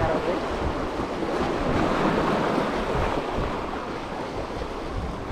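Small sea waves washing steadily against the boulders of a rock seawall, with wind gusting on the microphone.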